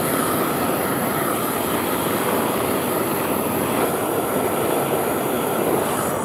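GrillBlazer Su-VGun propane searing torch burning with a steady, even rushing hiss of flame as it toasts hamburger buns.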